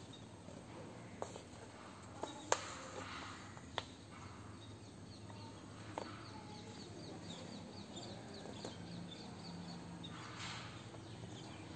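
Handling of a paperback textbook: a few sharp clicks and taps in the first few seconds and a brief paper swish near the end. A bird chirps in quick succession, a few chirps a second, a little after the middle.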